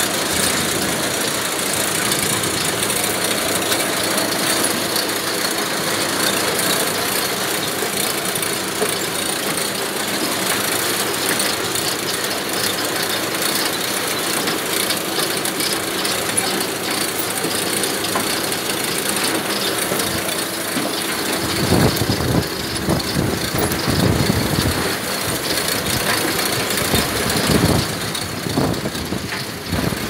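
Cassava harvester at work: steady engine and machinery noise with the rattle of roots and soil passing over its metal grates. From about two-thirds of the way in, heavier uneven knocks join in.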